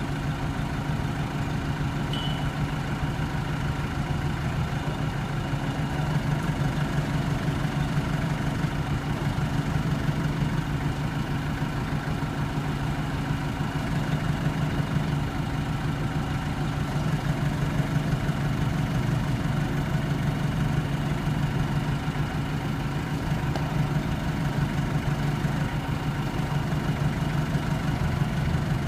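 A vehicle engine idling steadily, with a constant low hum and no revving.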